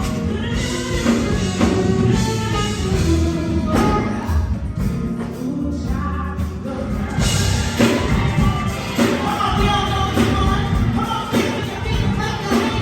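Live gospel music: a singer with a backing band.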